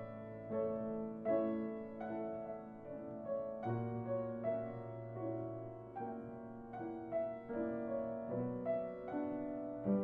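Background piano music: a slow melody, a new note about every second, over long held bass notes.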